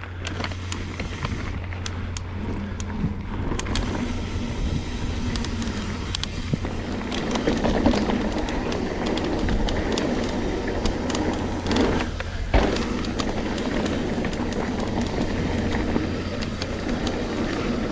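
Trek Slash 9.8 full-suspension mountain bike riding down a dirt trail: a steady rush of tyre and wind noise on the helmet-camera mic, with rattles and knocks as the bike goes over bumps.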